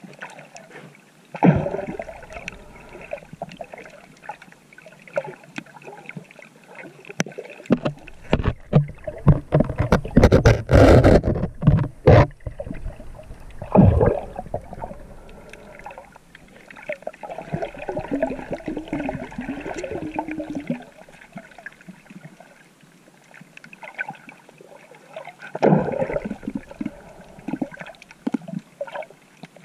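Water sloshing and gurgling around a GoPro carried by a swimmer, in irregular surges of splashing and bubbling, the loudest about eight to twelve seconds in.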